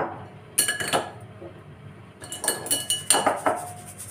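Stainless steel mesh sieve tapped and shaken against the rim of a glass bowl to sift lumpy powdered sugar, clinking and rattling in two bursts: one about half a second in and a longer one from about two to three and a half seconds.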